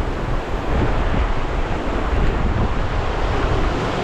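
Strong wind buffeting the microphone over heavy storm surf breaking on the shore: a steady, loud, low rumbling roar.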